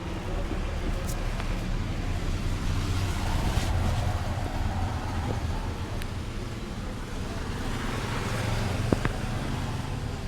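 Steady low background rumble, with a few faint sharp clicks about one, six and nine seconds in.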